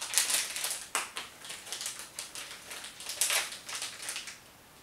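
A gummy-candy packet crinkling as it is handled and opened: irregular crackly rustles that die away near the end.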